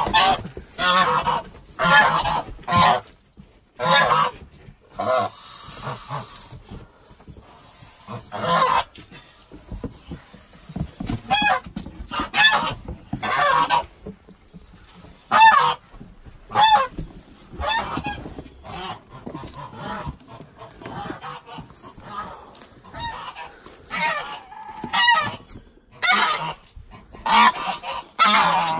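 Domestic geese honking over and over, loud short calls about one a second with a few brief gaps, as they are caught and handled: alarm calls of birds being held.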